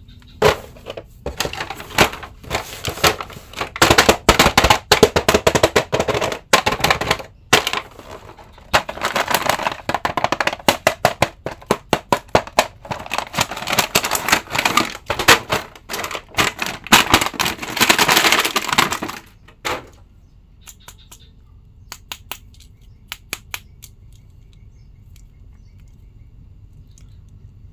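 Cardboard box and plastic packaging of an action figure being handled and opened by hand: a dense run of crackles, snaps and taps. In the last several seconds it dies down to occasional light clicks.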